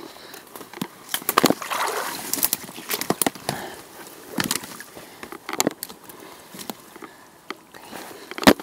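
Footsteps of someone in rubber boots walking through wet mud and fallen leaves: irregular footfalls and rustles, with one sharp knock near the end.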